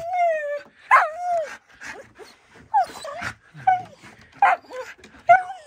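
Dog whining and yipping excitedly in greeting, a string of about six or seven short, high calls that slide downward in pitch.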